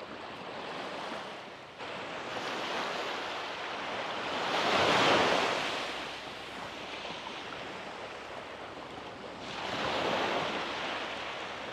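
Sea waves washing onto the beach, one breaking louder about five seconds in and another swelling near the end.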